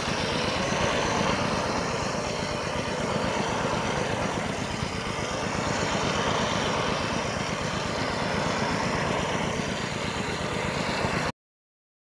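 Rain gun sprinkler jetting water in a steady rushing hiss, with a low rumble underneath. It cuts off suddenly near the end.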